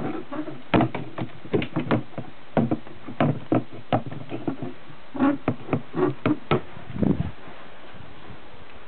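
Irregular knocks and clicks, about two dozen over six seconds, some with a dull thud, as an RC model sailboat's hull and rigging are handled; they stop about seven seconds in.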